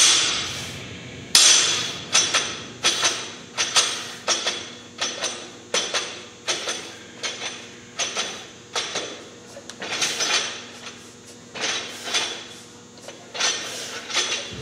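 Loaded barbell with bumper plates clinking and knocking in a quick rhythm, about one and a half strikes a second, as the plates shift on the sleeves through fast repetitions of deadlifts and bent-over rows. A louder knock comes right at the start, and the strikes are softer and fewer near the end.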